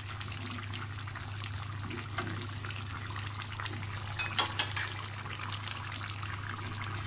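A thick curry sauce of beef, cabbage and potatoes simmering in a pan, bubbling and popping, with a few sharper pops about four and a half seconds in. A low steady hum runs underneath.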